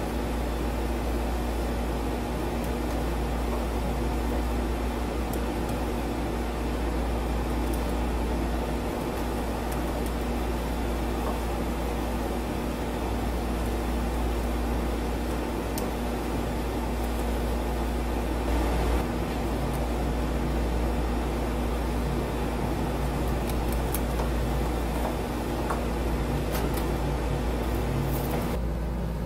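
Steady hum and hiss with a low rumble and one constant low tone, machine-like, with a few faint clicks scattered through.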